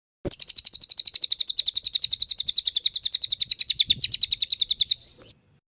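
A songbird's rapid, machine-even trill of about a dozen high notes a second, held for nearly five seconds, starting and stopping abruptly.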